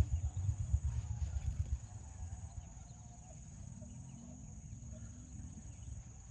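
Outdoor lakeside ambience: a steady high insect trill, with wind rumbling on the microphone for the first two seconds before it dies down.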